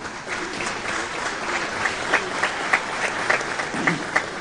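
Crowd applauding, many hands clapping together.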